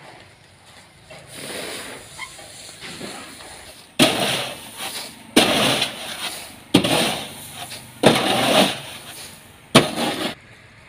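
Steamed parboiled paddy being pushed with a long-handled scraper in a steel vessel: five sudden, rushing, scraping strokes of grain over metal, about one every second and a half, starting about four seconds in. Before that there is only quiet outdoor ambience.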